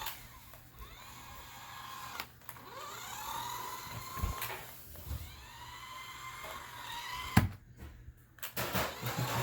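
Toy remote-control car's small electric motor whining, spinning up several times with the pitch rising each time before holding steady. A few sharp knocks come through, the loudest a little over seven seconds in.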